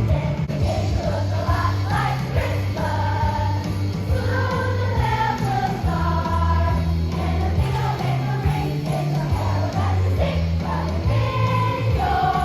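Music with singing voices over a steady bass line, the bass notes changing about once a second.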